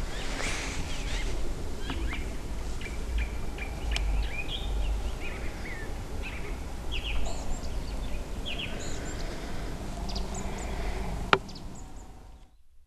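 Small birds chirping and calling repeatedly over a low steady rumble. A single sharp click about 11 seconds in is the loudest sound, and everything cuts away just before the end.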